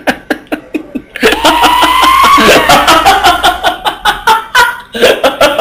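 A man laughing loudly in quick rhythmic bursts: short chuckles at first, then a long, hearty run of laughter.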